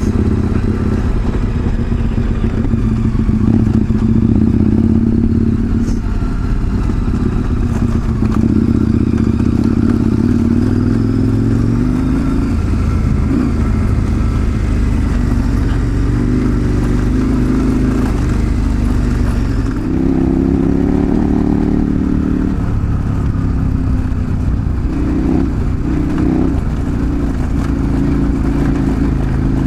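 Large twin-cylinder adventure motorcycle engine running under way, its pitch rising and falling with throttle and gear changes.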